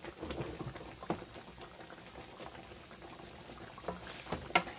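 Steady bubbling and sizzling of food cooking in skillets: onions frying in oil and flour beside steaks simmering in gravy. A few light clicks, with a sharp knock near the end as a spatula stirs the onions in the pan.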